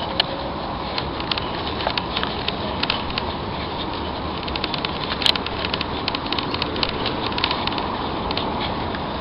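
Bicycle riding over a grassy dirt path: steady rolling and wind noise with many irregular clicks and rattles, one sharper click about five seconds in.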